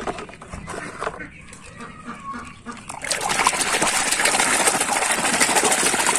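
Water splashing and sloshing hard as a hand churns a toy about in a basin of muddy water, starting about halfway through. Before that, quieter clatter of plastic toy trucks being handled in a tub.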